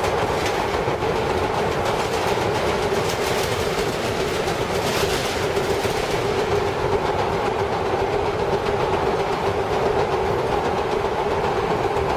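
Vintage R7A subway car running through a tunnel: a steady noise of steel wheels on the rails with a constant hum and rapid clicking over the track.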